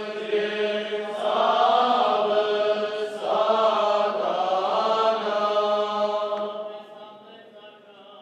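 Armenian liturgical chant sung by men's voices: a melody moving over a steady held low note, fading away near the end.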